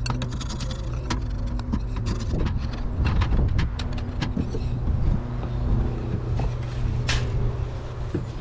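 A metal hive tool scraping propolis off a timber hive entrance block, in short irregular scratchy strokes, over a steady low hum.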